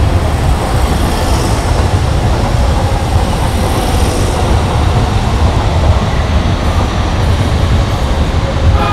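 Keikyu 2000 series electric train pulling out past the platform, a loud, steady rumble of wheels and motors as the cars go by.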